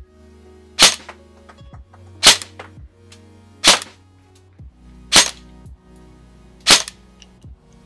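Krytac Trident MK2 airsoft electric gun firing single shots of 0.2 g BBs through a chronograph: five sharp shots, about a second and a half apart. Background music plays under them.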